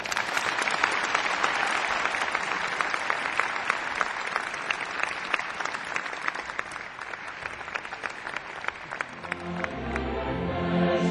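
Audience applauding in a church, many hands clapping, fading over several seconds. About ten seconds in, the choir and string orchestra start the next piece.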